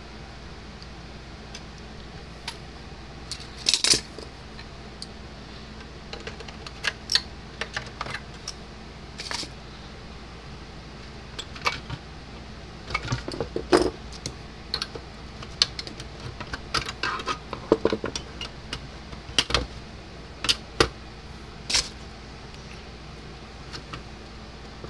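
Scattered clicks, taps and short rattles of hands and pliers handling an electric fence charger's circuit board and plastic case, over a steady low hum.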